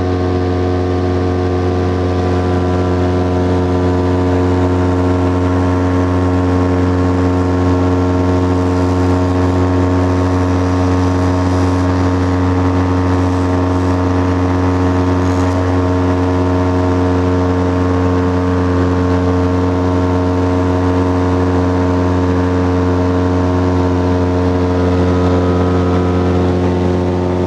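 Titan Tornado light aircraft's engine and propeller running steadily in flight, heard from inside the cabin as one even, unchanging drone with a strong low hum and a stack of higher tones.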